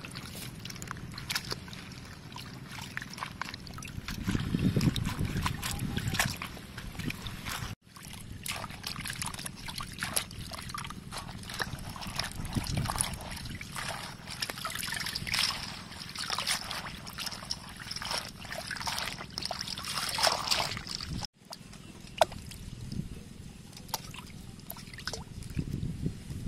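Water sloshing and splashing in a metal basin as hands rub and rinse bok choy, with many small splashes and drips. The sound cuts out briefly twice, and a low rumble rises about five seconds in.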